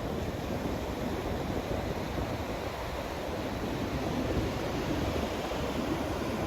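Ocean surf breaking on a beach: a steady wash of waves, with wind on the microphone.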